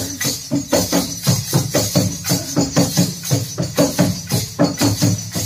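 Indian folk hand percussion played together: a chimta (long metal tongs hung with jingles) and a small wooden clapper with jingles, struck and shaken in a steady rhythm of about four beats a second, each beat carrying a bright metallic jingle.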